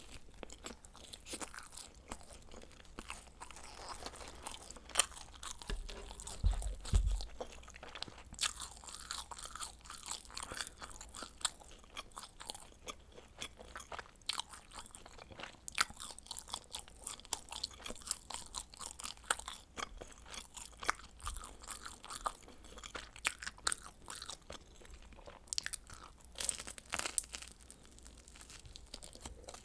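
Close-miked eating of baked frozen pizza: irregular crisp crunches and wet chewing clicks as the crust and toppings are bitten and chewed, with a brief low thump about six to seven seconds in.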